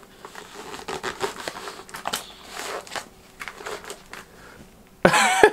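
Rustling, crinkling and scuffing as a Riddell Speed football helmet is pulled down over the head, its padding rubbing along a knit beanie. A sudden louder sound comes near the end.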